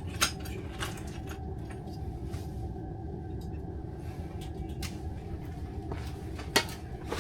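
Two sharp knocks, one just after the start and a louder one near the end, with a few softer clicks between, over a steady low rumble.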